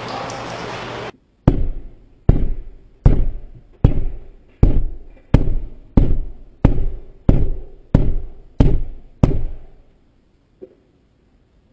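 Heavy blows striking an armored car's bullet-resistant side window, heard from inside the car: about a dozen hits in steady succession, each ringing out briefly, with the glass holding. A steady noise cuts off just before the first hit, and one faint knock comes near the end.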